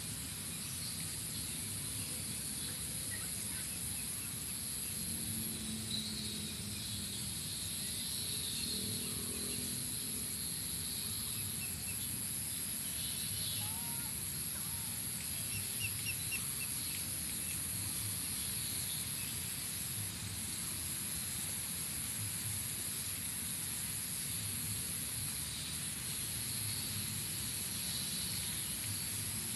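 Steady outdoor ambience: a continuous high-pitched drone over a low rumble, with a few faint chirps and calls near the middle.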